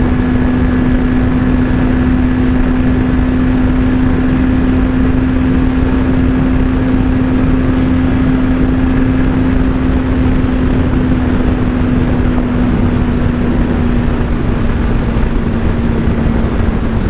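Motorcycle engine running at a steady, constant pitch over a loud, even rushing noise. The pitch drops slightly near the end.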